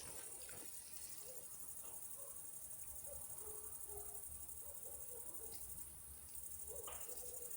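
Insects chirring steadily in a high, continuous, finely pulsing trill, with faint scattered small sounds underneath.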